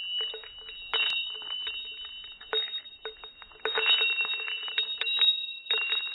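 Intro sound effect: two steady high tones ringing together, with rapid, irregular clicking over them.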